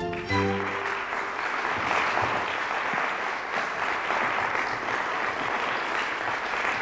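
Theatre audience applauding steadily, as the last notes of music die away in the first second.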